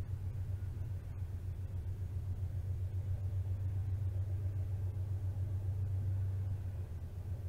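A steady low hum with a faint hiss above it, unchanging throughout.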